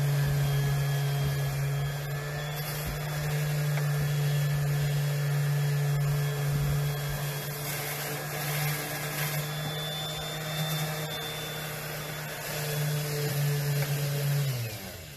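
Electric sander running steadily on wood: a constant motor hum with a rasping hiss. It is switched off and stops near the end.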